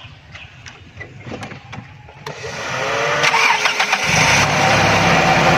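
Toyota 4A-F inline-four engine started with the key: after a few small clicks, the starter whirs for about a second and a half from about two seconds in, then the engine catches on the first try and runs steadily.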